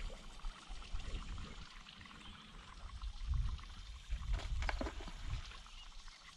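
Water trickling and lapping at a river's edge, with low wind rumble on the microphone. A couple of short, sharper splashy sounds come a little after four seconds in.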